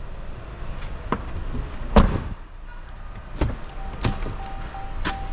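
A handful of sharp knocks, the loudest about two seconds in, over a low rumble. From a little past halfway a repeating electronic beep sets in.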